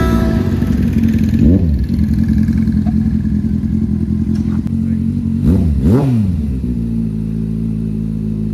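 Kawasaki Z800 inline-four motorcycle idling close by alongside another idling motorcycle, with a sharp throttle blip about a second and a half in and two quick blips around six seconds.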